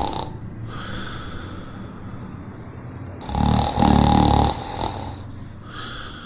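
Golden retriever snoring: softer breaths, then one loud snore about three seconds in that lasts about a second and a half, followed by quieter breaths.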